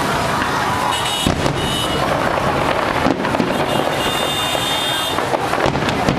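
Fireworks going off in a dense, continuous barrage of bangs and crackling, with short high whistles now and then.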